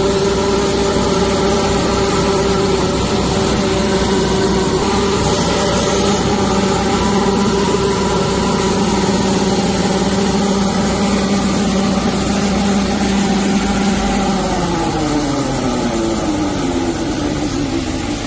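Engine-driven high-pressure drain-cleaning jetter running steadily at high pressure while its rotary nozzle sprays inside a pipe. About three-quarters through, the engine pitch falls steadily as the machine winds down.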